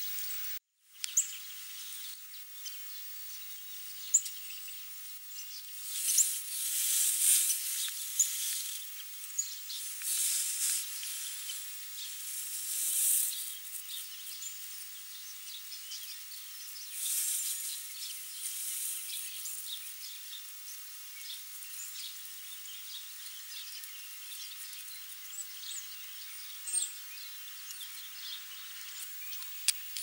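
Red-headed woodpecker working the bark of a tree trunk: a few scattered sharp taps and several stretches of scratchy rustling, over a thin outdoor hiss with faint high chirps.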